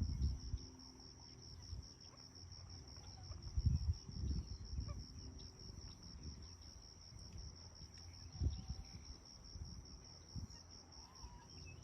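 Insects singing: a steady, rapidly pulsing high trill throughout. Twice, a few seconds apart, a low rumbling bump rises over it, and near the end a bird gives a couple of faint short calls.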